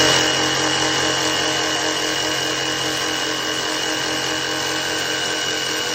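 DeWalt DCS331B 20V MAX cordless jig saw running at a steady speed, a low motor hum with a high whine over it.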